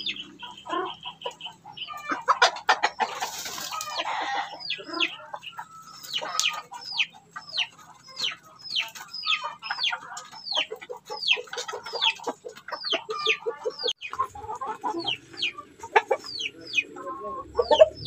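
Backyard chickens clucking and peeping as they crowd in to peck feed from a hand. There is a brief burst of rustling about three seconds in, then a run of short, high, falling peeps about twice a second.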